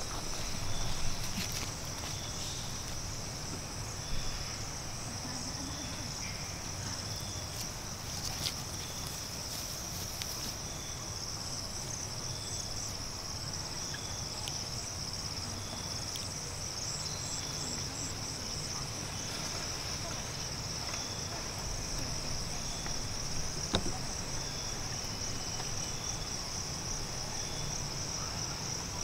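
Steady high-pitched drone of an outdoor insect chorus, with a fainter short chirp repeating about once a second beneath it.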